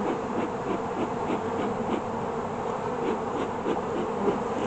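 Honeybees buzzing in numbers around the hive: a steady hum with individual bees' buzzes wavering up and down in pitch as they fly past.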